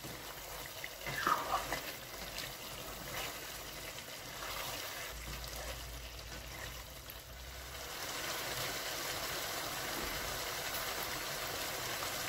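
Chicken and cauliflower curry simmering in an uncovered pan, a steady bubbling hiss that grows louder from about eight seconds in. A few short clinks about a second in, the loudest sounds, as the pan is handled and stirred with a spoon.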